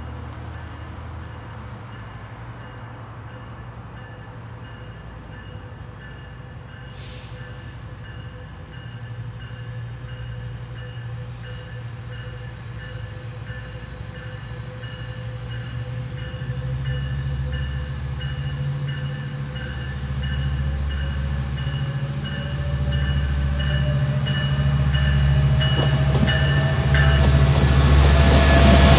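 Metrolink F125 diesel locomotive approaching with a commuter train, its low engine drone and rail noise growing steadily louder until it passes close by near the end.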